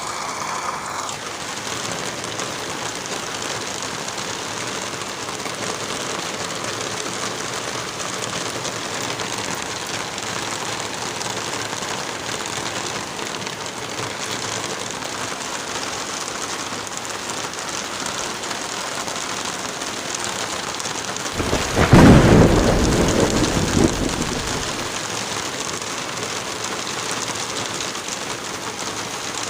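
Steady rain falling, with one clap of thunder about two-thirds of the way through that rumbles deep and loud for about three seconds before fading back under the rain.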